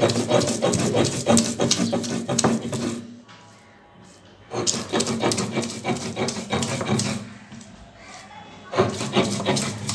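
Stone roller rocked back and forth over wet chutney ingredients on a stone grinding slab (sil-nora), a rough, rhythmic scraping. It comes in spells, with a pause about three seconds in and another lull near eight seconds.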